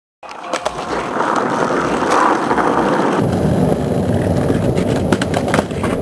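Skateboard wheels rolling on asphalt: a continuous noisy rumble with scattered sharp clicks. About three seconds in, a hiss gives way to a deeper, heavier rumble.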